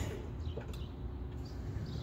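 Quiet outdoor background: a steady low rumble with a few faint, short bird chirps.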